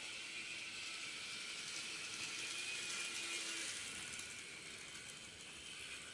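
N gauge model of a Keihan 1900 series train running along the layout's track, its small motor and wheels giving a steady high whir. The whir grows quieter over the last two seconds as the train slows to arrive at the platform.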